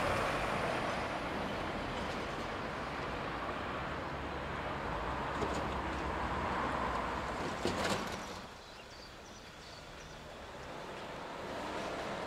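Road traffic: cars passing on a town street, their tyre and engine noise steady, then fading about eight seconds in, with a couple of sharp knocks just before it fades.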